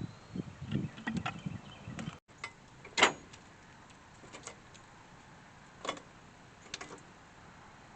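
Wood being handled: a rumbling clatter of knocks for the first two seconds, then one sharp knock about three seconds in and a few lighter clicks later.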